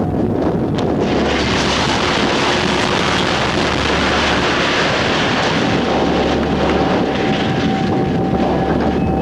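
Strong wind buffeting the microphone of an old VHS camcorder, a loud rushing noise that swells about a second in and holds for several seconds.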